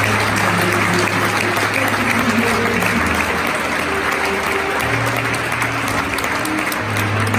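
Audience applauding while a keyboard plays on with long held bass notes.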